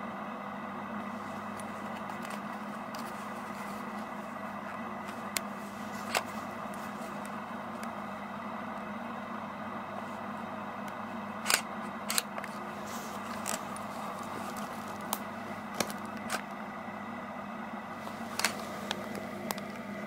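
A steady electrical-sounding hum with irregular sharp crackles and clicks scattered through it, the loudest about eleven and a half seconds in.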